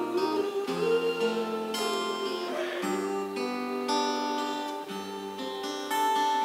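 Guitar strumming chords in an instrumental break of a live song, a new chord about once a second.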